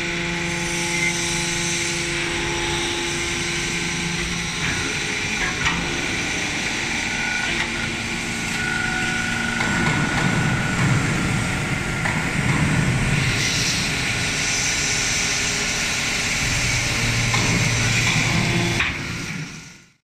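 130-ton hydraulic scrap metal baler running: the motor and hydraulic pump give a steady hum and whine while the rams press light scrap in the chamber, with a few sharp clicks. The sound grows louder and rougher about halfway through.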